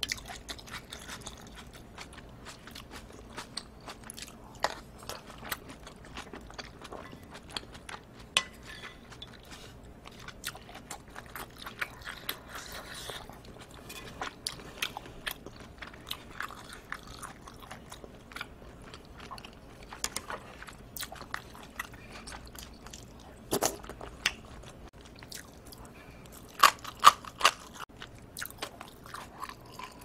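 Close-miked eating sounds: shrimp and clams from a bowl of seafood noodle soup being chewed, with a steady run of small wet mouth clicks. A few louder sharp clicks come about two-thirds of the way in and again near the end.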